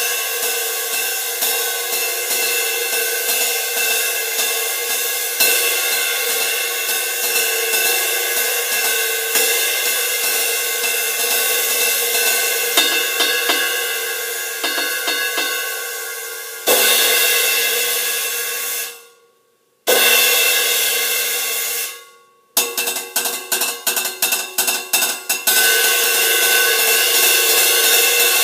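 19-inch Zildjian K Constantinople three-rivet crash ride played with a stick: a steady ride pattern of quick strokes under a continuous shimmering wash. About two-thirds of the way in come two crashes about three seconds apart, each left to die away. After them a quickening run of strokes builds back into the wash.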